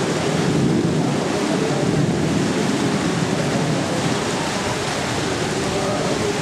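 Steady rushing noise of a storm, with wind buffeting the microphone.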